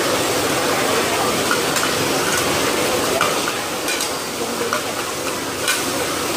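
Hoi tod batter frying in oil on large flat griddles, a steady sizzle, with metal spatulas scraping and clinking a few times as the pieces are chopped and turned.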